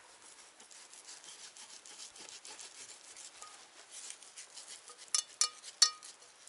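Knife cutting and scraping meat off a frozen cow's head: a quick run of short rasping strokes, then three sharp, ringing clicks a little after five seconds in.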